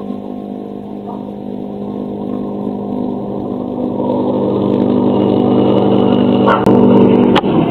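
A motor vehicle engine running at an even pitch and growing steadily louder as it approaches, with two sharp knocks near the end.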